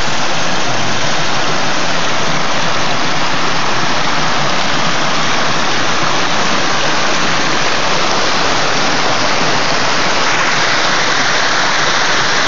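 Creek water rushing over a rock ledge and splashing into a pool below, a steady, loud, close-up rush that shifts slightly in tone near the end.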